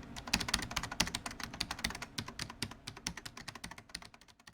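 Rapid typing on a computer keyboard, a dense run of key clicks that grows fainter and stops abruptly near the end.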